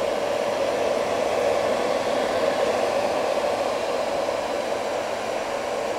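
Steady rushing air from the small cooling fan in the mini lathe's motor block, blowing onto the brushless motor controller's heatsink. It is an even whoosh with no clear pitch that holds at the same level throughout.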